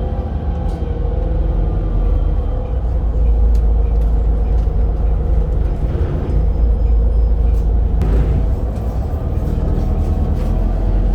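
Volvo B7RLE bus's six-cylinder diesel engine and driveline running under way: a steady, loud low rumble with a steady tone over it, and a brief hiss about eight seconds in.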